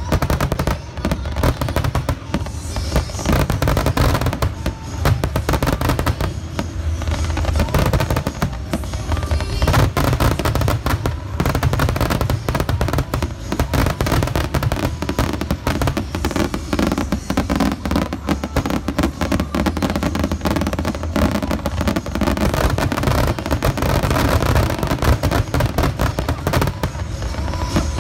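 Fireworks display firing a dense, continuous barrage of aerial shells and comets: rapid overlapping bangs and crackle with no let-up.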